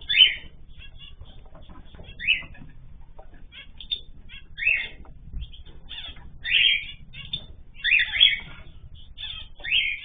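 Ornamental cage birds chirping: a steady scatter of short chirps and ticks, with louder calls that sweep down in pitch about every one to two seconds.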